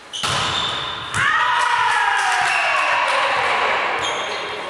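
A volleyball is struck twice, a second apart. Then several players shout together in one long cheer that slides down in pitch, celebrating the point.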